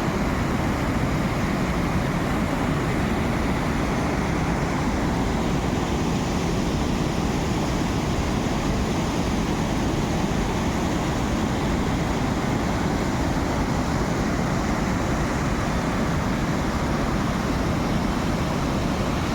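Steady rush of water pouring over a dam, an even, unbroken noise.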